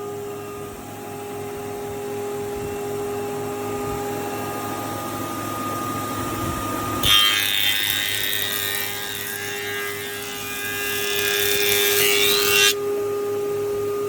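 Single-sided thickness planer with a four-knife cutterhead running with a steady hum. About seven seconds in, a board is fed through and planed for about five and a half seconds with a loud cutting sound that stops abruptly, and the machine then runs free again.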